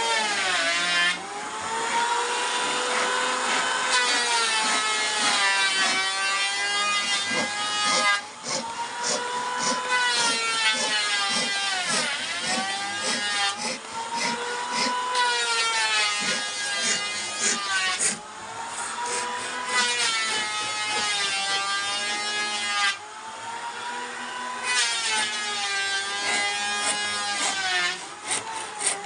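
Electric power tool working wood: a whining motor whose pitch sags and recovers again and again as it is pressed into the wood, with short clicks over it. It eases off briefly a few times.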